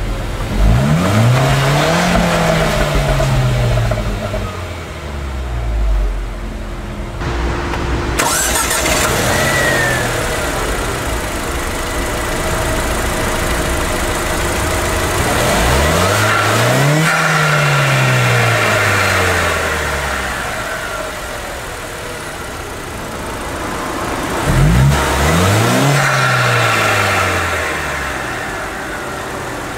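Zotye T600's 1.5-litre turbocharged four-cylinder engine idling and being blipped several times, each rev rising quickly and sinking back to idle more slowly. It is heard first at the tailpipe and, from about 8 seconds in, from the open engine bay.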